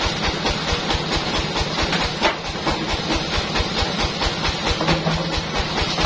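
Band saw mill machinery running steadily: a low throb about five times a second under a constant hiss, with one sharp knock a little over two seconds in.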